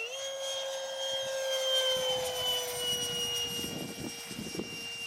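Electric ducted fan of a radio-controlled F-22 Raptor model jet (Wemotec Midi Fan with Mega motor) whining in flight. The pitch steps up a little at the start, then slides gently lower as the model flies on. The whine is loudest about two seconds in.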